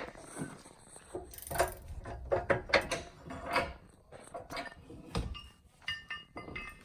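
Irregular metal clicks, clanks and scrapes as a heavy steel tow hook, its bolts loosened, is worked free and slid out from the truck's front frame, with a dull thump a little past five seconds in.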